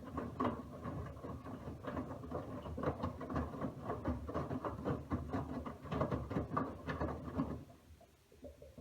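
Miele W1 front-loading washing machine in its wash cycle: the drum turning, wet laundry tumbling and sloshing with many irregular soft knocks. Near the end the drum stops and only faint sparse sounds remain.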